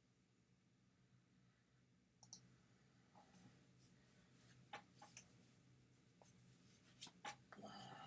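Near silence: a few faint clicks and a short rustle over a low steady hum.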